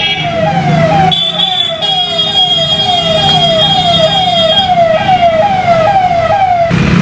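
An electronic siren sounding in quick falling sweeps, about two a second, over the hum of traffic; it cuts off suddenly near the end.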